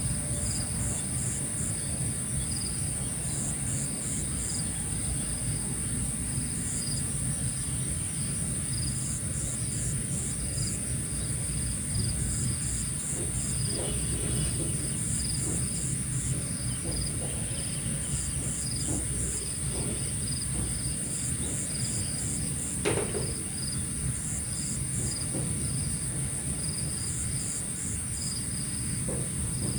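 Insects chirping: a continuous high-pitched trill, with short groups of four or five chirps repeating every second or two, over a low steady rumble. A brief louder sound comes about 23 seconds in.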